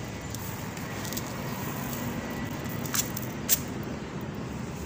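Uncooked rice grains being lifted by hand and let fall back into a plastic bowl, over a steady background hum, with two sharp clicks about three seconds in.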